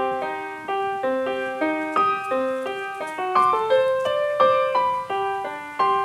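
Background piano music: a flowing run of struck notes and chords, several each second.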